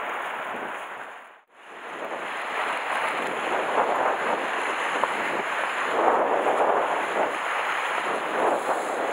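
Sea surf washing against a rocky shore, mixed with wind buffeting the microphone, as a steady rushing noise. The sound dips almost to silence for a moment about a second and a half in, then returns.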